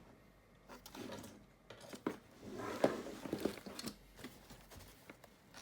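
Hands handling a walkie-talkie in its plastic holder and bungee cord: scattered clicks and rustling, busiest about three seconds in with one sharp click.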